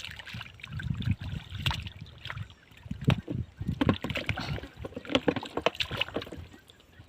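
Hands sloshing and splashing in shallow muddy water, with irregular splashes and knocks while fish are grabbed by hand.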